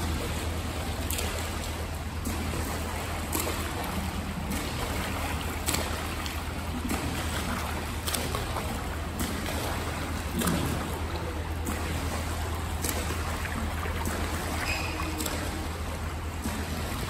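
A tethered swimmer's arm strokes splashing in the pool, a sharp splash about once a second, over a steady rush of water and a constant low hum.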